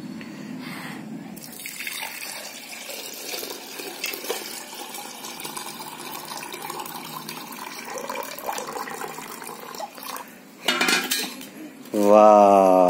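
Water poured in a steady stream from a steel bowl into a hollow ice shell, splashing inside it, stopping after about ten seconds.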